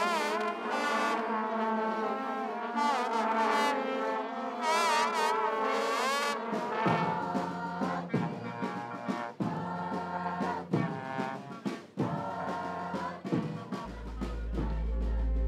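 Music: a wavering, sliding melody over a held low note, then from about seven seconds in a beat pulsing roughly once a second, with a deep bass swell rising near the end.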